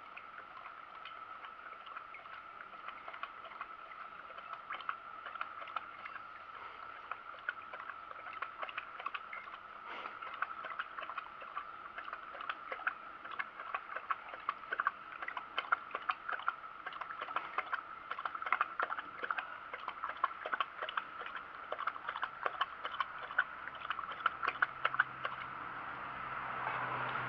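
A dog lapping from a steel bowl: a run of quick, irregular laps and clinks that grows louder toward the end, over a steady high electronic whine.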